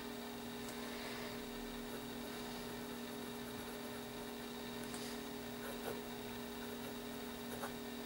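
Steady electrical hum, with faint scratches now and then from a fine steel fountain-pen nib writing on paper.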